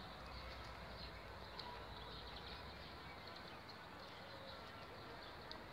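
Quiet outdoor ambience: a steady low background hum with faint, scattered bird chirps.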